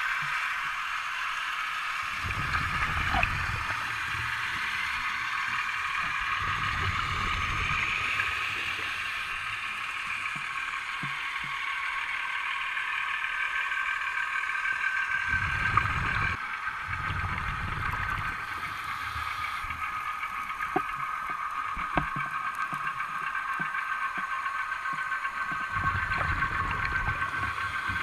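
Underwater sound: a steady hum of several high tones, with bursts of low bubbling every several seconds, typical of a scuba diver's regulator exhaling. A few faint clicks.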